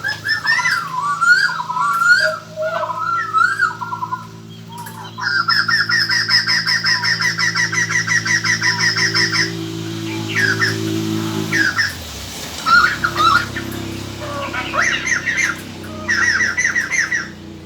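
Laughingthrush calls played as a lure recording: warbling whistled phrases at first, then a long fast rattling chatter of about four seconds, then scattered calls and a shorter rattle near the end. A low steady hum runs underneath until about two-thirds of the way through.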